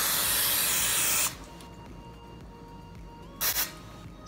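Aerosol cooking spray (PAM) hissing from the can: a long spray that stops about a second in, then a short burst near the end.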